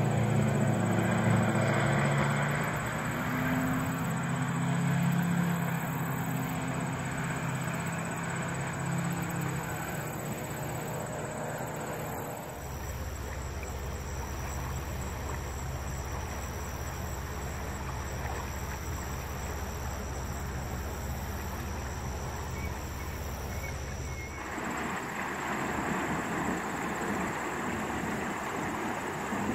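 Flood-swollen river water rushing steadily, an even wash of water noise whose character changes abruptly about 12 and 24 seconds in. A low vehicle-like rumble fades out over the first ten seconds, and a deep steady rumble runs under the water noise through the middle stretch.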